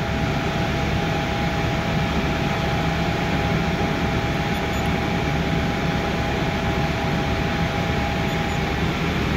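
Steady whir of a blower with a low hum, and two steady whining tones over it that stop near the end.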